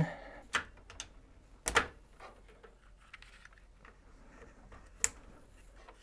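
An Ethernet patch cable's RJ45 plug being pulled from a patch panel jack and clicked into another, with faint rustling of the cable bundle. A few short clicks, the sharpest about a second and a half in and again about five seconds in.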